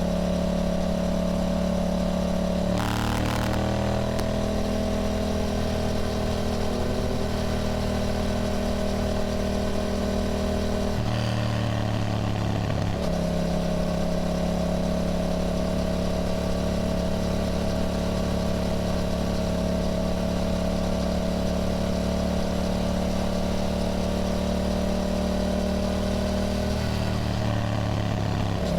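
Yamaha motorcycle engine running on the road, mostly at a steady note. The pitch shifts about three seconds in, again around the middle, and once more near the end, as throttle or gear changes.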